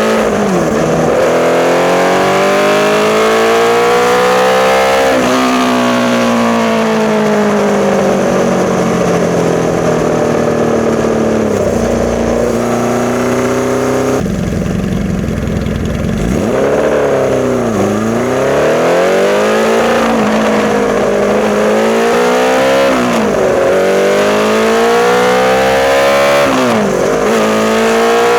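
A 1981 Honda CB650's inline-four engine, breathing through Mikuni VM34 carburettors and a Hindle 4-2-1 exhaust, being ridden up through the gears. The engine note climbs repeatedly and drops at each shift. About halfway through it slows to a brief steady idle, then pulls away and climbs through the gears again.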